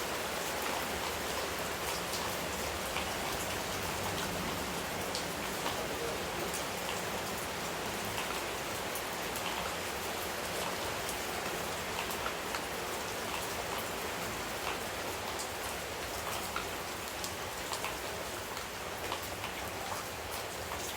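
Steady rain falling, with many separate drops ticking on a surface.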